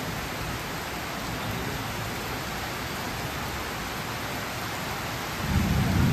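Heavy rain pouring down in a steady hiss. About five and a half seconds in, a deeper rumble swells as the approaching electric multiple-unit train nears.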